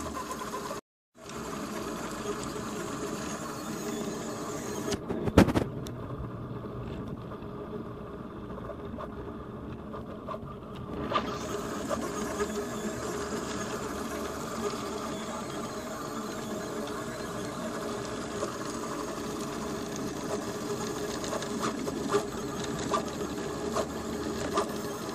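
Fast delta 3D printer with NEMA 17 stepper motors running a print: the steppers whine and buzz in many steady tones that shift quickly as the head darts about. The sound breaks off briefly about a second in, and there is one sharp click about five seconds in.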